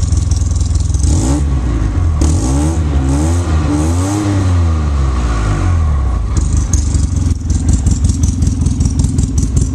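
Polaris Ranger 800 XP's twin-cylinder engine through a custom glasspack exhaust, blipped from idle and revved up and down several times. It drops back to a choppy idle about six seconds in, which sounds like a cammed engine.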